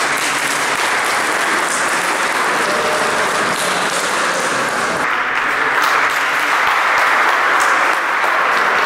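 A crowd applauding in a large sports hall: steady, continuous clapping that grows a little louder about halfway through.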